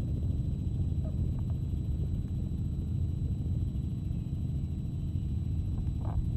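Steady low rumble of a news helicopter's engine and rotor, heard from on board.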